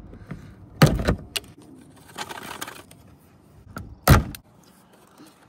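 A hand tool clicking and scraping on the fasteners of a car's plastic underbody panel as they are worked loose, with sharp clicks about a second in and a louder one about four seconds in.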